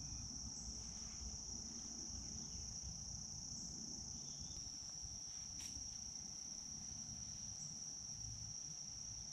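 Steady, high-pitched chorus of insects in woodland, an unbroken trill, over a faint low rumble.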